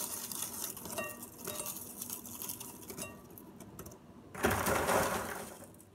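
Clumps of caramel-coated popcorn being pulled apart by hand, with fine crackling and rustling of the hardened caramel pieces. A louder rustle of popcorn about four and a half seconds in.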